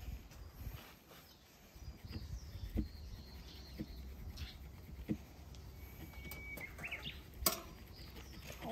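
Hand-drill friction fire: a wooden spindle spun between the palms against a wooden fireboard, giving faint rubbing and a few sharp knocks about a second apart. Small birds chirp in the background.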